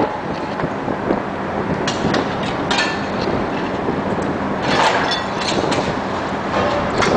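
John Deere 450's diesel engine running steadily while bricks crash and clatter down in short bursts, several times, as the machine knocks a brick wall down.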